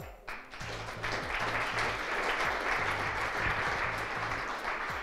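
Audience applauding steadily. The clapping starts about half a second in and begins to die down near the end.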